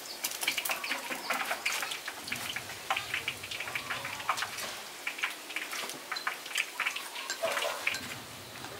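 Food frying in hot oil in a pan, sizzling with many irregular crackles and pops.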